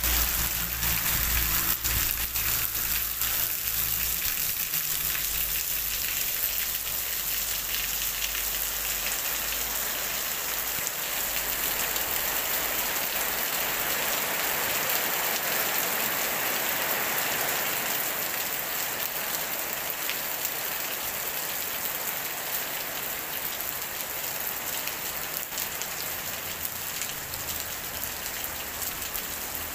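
Steady rain falling on wet pavement and puddles: an even hiss of drops, with a low rumble under it in the first few seconds, easing slightly toward the end.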